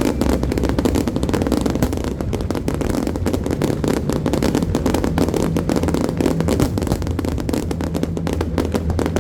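Fireworks crackling: a dense, rapid stream of small pops, many a second, over a steady low rumble.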